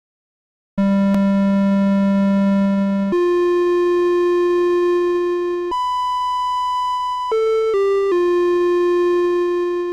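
Casio VL-1 monophonic synthesizer playing a run of six held notes: a long low note, a higher one, a high note with a thinner tone, two short notes, and a final sustained note. Its tremolo is set to the lowest value, giving a fast, shallow wobble in volume that can just about be heard.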